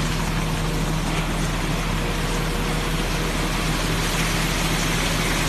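Steady mechanical running noise with a constant low hum, unchanging throughout.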